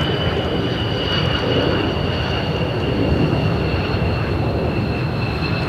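F-15J Eagle's twin F100 turbofan engines running during the landing roll: a loud, steady rumble with two high whining tones that slowly fall in pitch.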